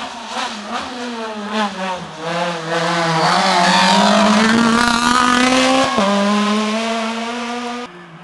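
A small hatchback rally car's engine at full competition pace. The revs rise and fall on the approach to a hairpin, then climb hard as it accelerates out, with one quick upshift about six seconds in before the revs climb again. The sound cuts off abruptly near the end.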